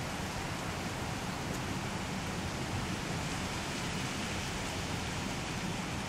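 Steady wind noise, an even rushing hiss with no breaks.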